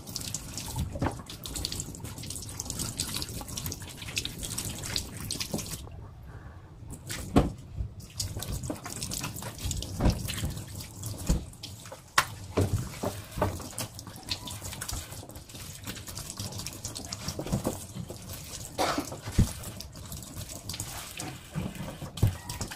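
Kitchen tap running into a stainless steel sink as vegetables are rinsed under it, with scattered knocks and clatters as they are handled. The water's hiss drops away for a couple of seconds about six seconds in.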